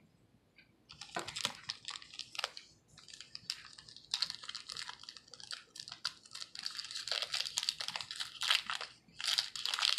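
Crinkling and rustling from trading cards and their packaging being handled, in dense irregular bursts starting about a second in.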